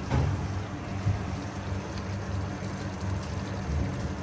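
Steady low kitchen hum from the stove area, with a couple of soft knocks as cooked rice is scooped onto the biryani masala in the pot.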